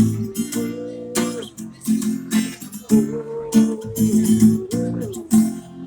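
Instrumental break in a pop song: strummed acoustic guitar with sharp, regular strokes, and a held melody line above that slides between notes.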